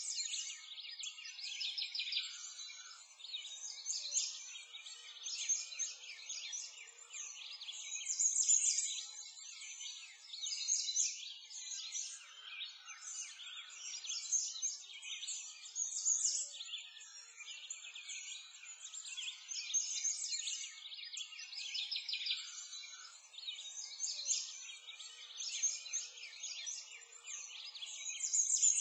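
A dense chorus of many songbirds chirping and trilling at once, with no low sounds under it.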